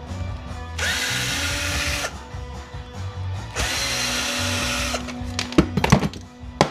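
Power drill running in two short bursts of about a second and a half, each spinning up with a rising whine, as it backs screws out of an angle grinder's housing. A few sharp clicks follow near the end.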